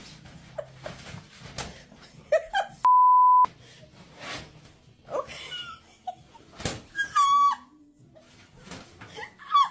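A single loud, steady beep tone, about half a second long, about three seconds in, amid scattered short knocks and brief pitched, voice-like sounds.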